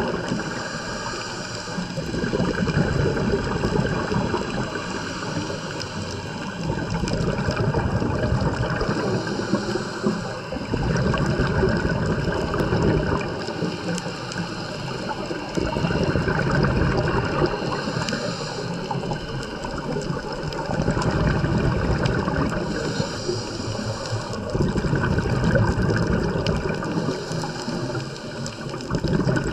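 Underwater bubbling and gurgling of a scuba diver's exhaled breath, swelling and easing every four or five seconds.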